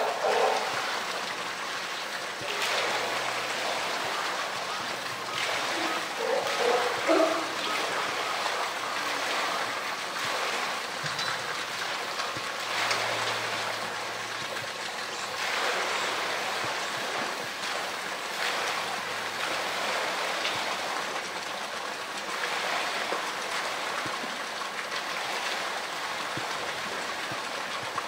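Polar bear swimming in its pool: water splashing and lapping, swelling every few seconds over a steady rush of moving water. A couple of short pitched sounds come near the start and about seven seconds in.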